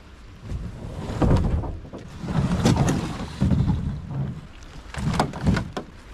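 Canoe on the lake water: repeated paddle strokes and splashing, with a few sharp knocks against the hull.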